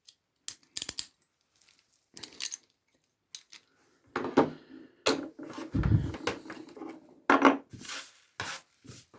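A crimping tool pressing an RJ45 connector onto an Ethernet cable: scattered clicks and rubbing, then a denser run of clicks and squeezing from about four seconds in, with a dull thump near the middle.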